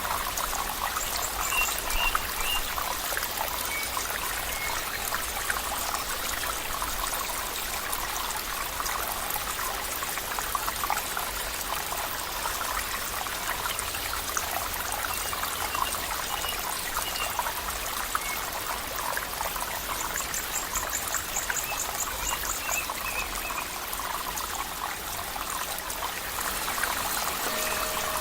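Water trickling and flowing steadily, like a small stream, with a few faint high chirps and a brief rapid trill about 20 seconds in.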